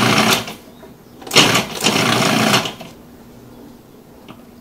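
Small food processor pulsed in short runs: one run stops just after the start and a second runs for about a second and a half. It is cutting small pieces of butter into flour for pastry dough.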